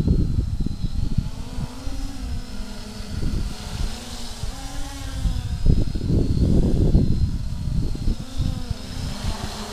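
XK X350 Air Dancer quadcopter's propellers buzzing in flight, the pitch rising and falling as the throttle changes. Loud, irregular low rumbling from wind on the microphone runs underneath.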